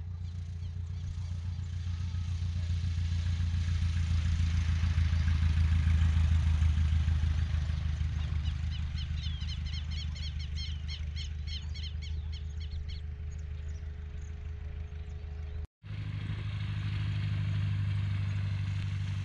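Piston engine of a single-engine high-wing light plane running on a grass airstrip. Its drone grows louder over the first six seconds, then fades. After a brief break it runs on steadily. A rapid run of high chirps sounds in the middle.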